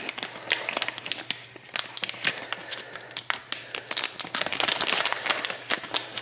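Foil trading-card pack wrapper being torn open and crinkled by hand: a steady run of irregular crackles and rips that thins out briefly, then grows busier in the second half.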